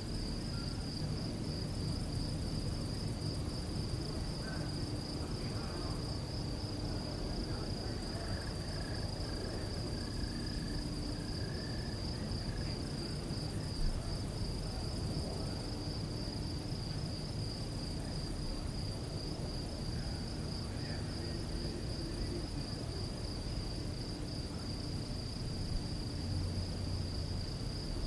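Crickets chirping at night in a steady, fast, unbroken trill, over a faint low rumble.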